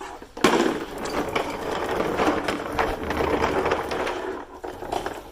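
Dense metallic clattering and rattling, as of tools or parts being handled, starting sharply about half a second in and stopping about five seconds in.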